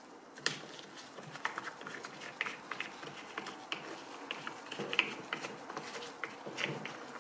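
Damp microfiber cloth wiped over a plastic fan blade by a gloved hand, a soft rubbing with many small, irregular clicks.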